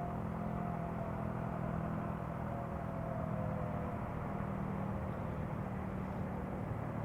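Faint outdoor warning siren sounding the attack signal, one tone slowly falling in pitch through the middle, over a steady low mechanical hum.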